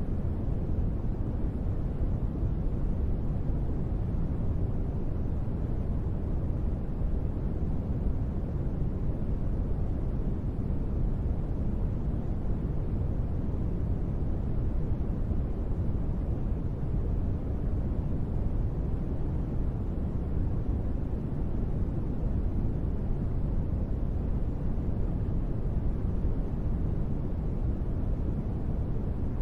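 Steady, unbroken noise for sleep, weighted toward the low end so it sounds like a deep, even rush rather than a bright hiss.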